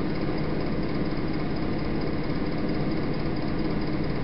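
Steady droning hum and hiss from a worn analogue videotape soundtrack, even in level with no events.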